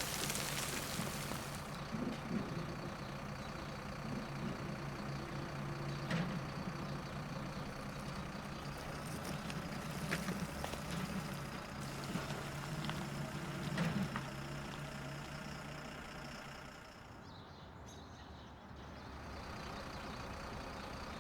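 Excavator engine running steadily while digging a trench, with a few sharp knocks spread through; the engine hum drops away about three-quarters of the way through.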